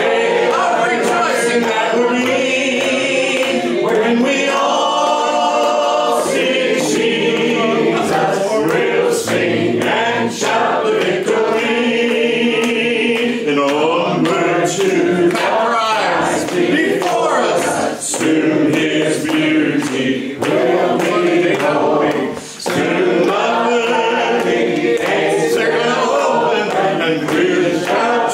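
A congregation singing a hymn together, led by a man's voice at the microphone.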